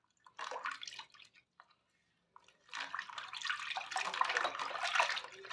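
Water splashing during a cat's bath: a short splash about half a second in, then a longer stretch of sloshing water from about three seconds in.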